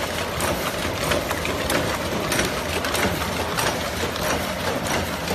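Blister cartoning machine running: a steady mechanical clatter with a sharp click about one and a half times a second, the machine's cycle as it loads blister packs into cartons.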